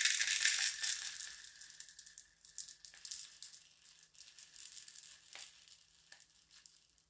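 Laundry scent booster beads pouring from a plastic bottle into its plastic cap: a steady hiss of small pellets, loudest in the first second or so, then thinning to a trickle with scattered ticks as the cap fills.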